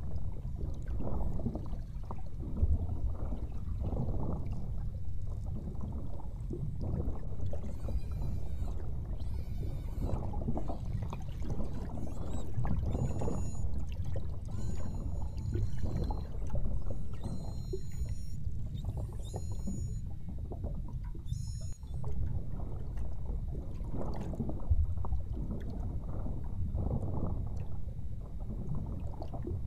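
Beluga whales calling, heard underwater through a hydrophone: a run of high sliding whistles and quick chirps through the middle stretch, over a steady low rush of water and boat noise.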